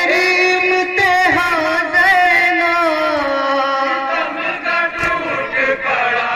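Men's voices chanting a noha, a mourning lament, drawing out long held, wavering notes of the melody between sung lines.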